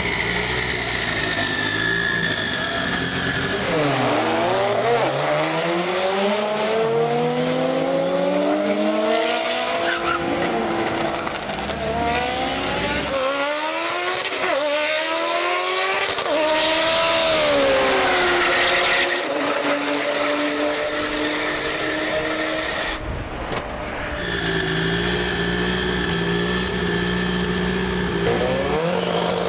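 Mitsubishi Lancer Evolution X drag car's engine revving hard, its pitch climbing and dropping back in repeated steps as it shifts up through the gears. It is later held at steady high revs with tire squeal, as in a burnout.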